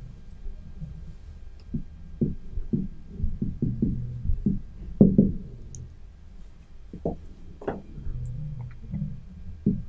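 Marker pen writing on a whiteboard: irregular taps and knocks as each stroke is drawn, coming faster near the end.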